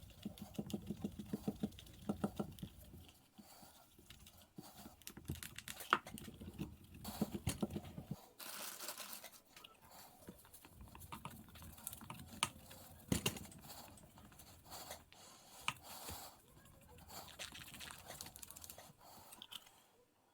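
Hand work on a boombox being restored: runs of quick rubbing strokes on its casing, a short hiss about eight seconds in, then scattered clicks and knocks of small parts being handled.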